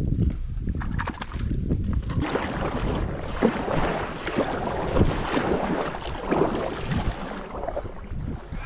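Kayak paddle strokes splashing and pulling through the water, the blades dipping about every one and a half seconds from about two seconds in, with wind rumbling on the microphone.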